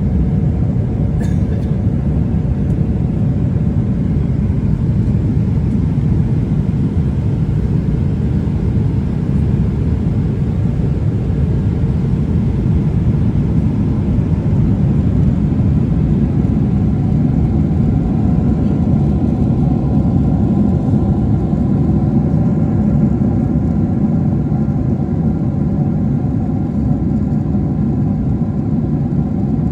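Steady low rumble of a moving vehicle, with faint steady engine tones above it and a brief click about a second in.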